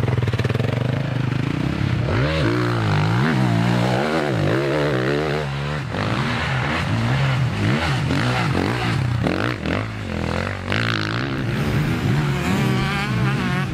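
Motocross dirt bikes out on the track, their engines revving up and down over and over as they accelerate and back off, with more than one engine heard at once.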